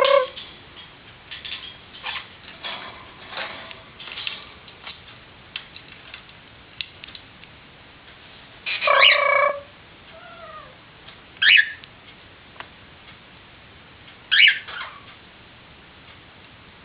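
Pet parrot calling: one loud drawn-out call about nine seconds in, then two short sharp chirps a few seconds apart, with soft clicks and quiet chatter between.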